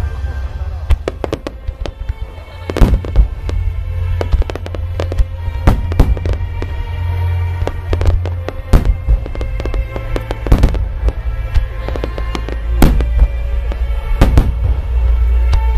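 Large aerial firework shells and starmine volleys bursting in quick succession: a dense crackle and rumble, with many sharp bangs, the loudest every second or two.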